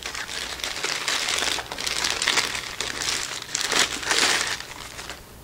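Clear plastic bag crinkling and rustling as a pistol wrapped in it is handled and worked out of it, in uneven crackly bursts that fade out near the end.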